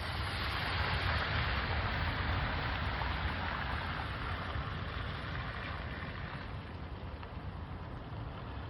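Steady rushing hiss of heavy rain and running rainwater, over a low rumble of wind on the microphone. The hiss is strongest in the first few seconds, then eases a little.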